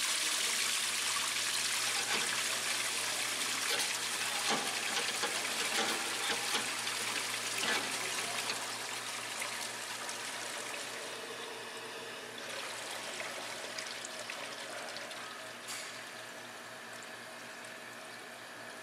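Dielectric fluid gushing into the work tank of a die-sinking EDM, splashing and foaming as the tank fills. The rush of liquid is loudest over the first several seconds and gradually quietens as the fluid level rises, over a steady low hum.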